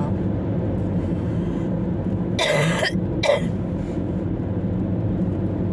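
Steady drone of a car's engine and tyres heard from inside the moving cabin. About halfway through, a person coughs twice, a longer cough then a short one.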